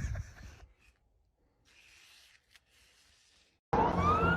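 Mostly near silence, then near the end a siren wail and traffic noise cut in suddenly, the siren's pitch rising.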